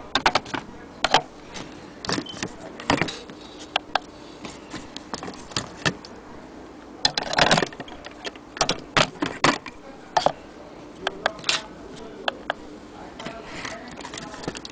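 Irregular clicks, taps and knocks from handling a Kundo anniversary clock and its glass dome, with brass and glass knocking on hard surfaces as they are moved and set down. A dense cluster of knocks comes about halfway through.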